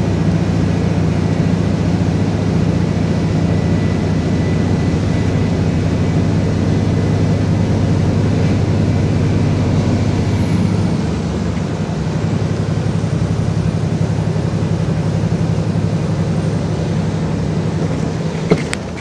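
Mercedes-Benz Actros 1844's V6 diesel engine running steadily while the truck is under way, heard through the open cab window along with road noise. The engine note eases off slightly about eleven seconds in, and a few sharp clicks come near the end.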